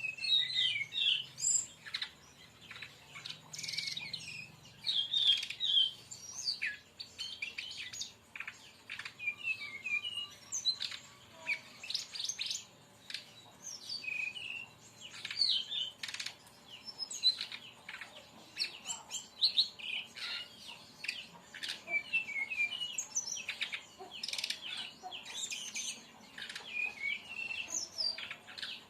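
Brown-chested jungle flycatcher singing in rapid bursts: quick runs of high chirps and trills mixed with short sharp clicking notes, repeated without pause.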